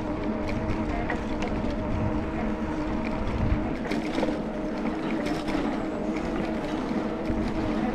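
Ride noise from a moving bicycle: low wind rumble on the microphone under a steady mechanical hum, with light scattered ticks.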